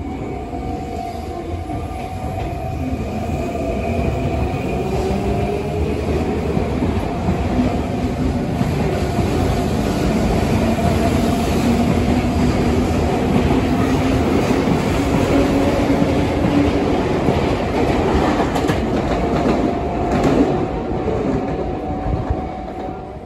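Sotetsu Line electric train moving along a station platform: a loud, steady rumble with a motor whine that slides up and down in pitch, growing louder over the first several seconds. A few wheel clatters come near the end.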